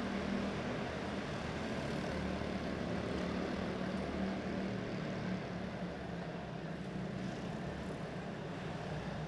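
Quarter midget race cars' small engines running together on the track, a steady drone with a constant hum, echoing in a large indoor arena.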